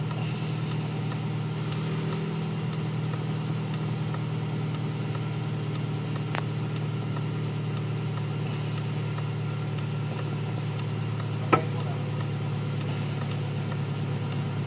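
Car engine idling steadily, with a faint regular ticking about twice a second. Two brief sharp sounds cut in, about six and eleven and a half seconds in.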